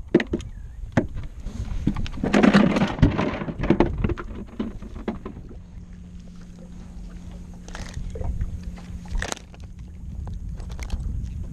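Small fishing skiff on the water, with clicks and knocks as a fishing rod, pliers and tackle are handled. A louder rush of noise lasts about two seconds near the start, and a steady low hum sets in after about four seconds and carries on.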